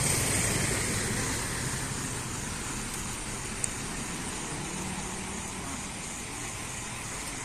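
Road traffic noise: a vehicle passing, its sound easing off over the first couple of seconds, then a steady traffic hum with one small click.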